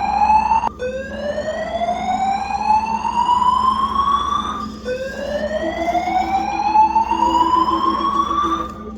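Building fire-alarm evacuation system sounding a slow-whoop tone: a siren note rising steadily in pitch over about four seconds, heard twice, then cutting off near the end. A fast, low beeping tone pulses alongside it during the second sweep.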